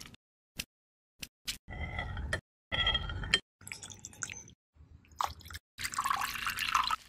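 Short kitchen sounds cut together with silences between: a few sharp clicks, then ringing clinks and scrapes of a spoon against a dish. Near the end comes a longer run of liquid pouring and splashing into a glass.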